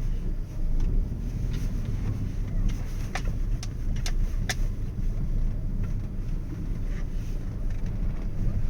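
Low, steady rumble of a vehicle on the move, road and wind noise, with a few sharp clicks in the middle.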